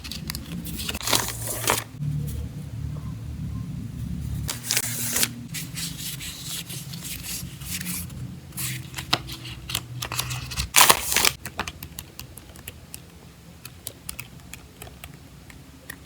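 Stationery and its packaging being handled during an unboxing: rustling and tearing of wrapping, with many small clicks and taps as items are moved and set down. The louder rustles come about 1, 5 and 11 seconds in, over a low steady hum.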